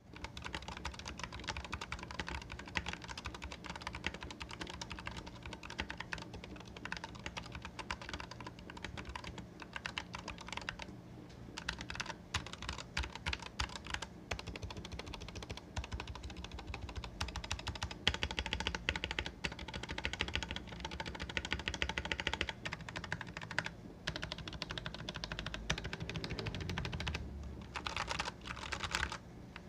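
Typing on a stock Royal Kludge RK100 mechanical keyboard with RK Red linear switches and XDA-profile keycaps: a quick, continuous run of keystroke clicks, thinning to separate single presses a little before the middle.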